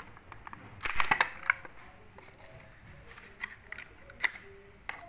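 Thin clear plastic soap molds being handled and set down on a marble counter: a cluster of crackling plastic clicks about a second in, then a few separate sharp clicks.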